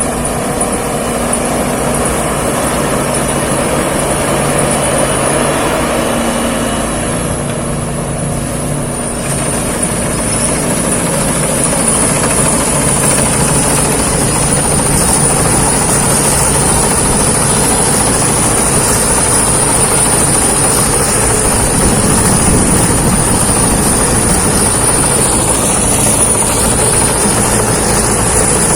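Rice combine harvester working in the field: its engine and threshing machinery run in a loud, steady drone, with a thin, steady high whine above it.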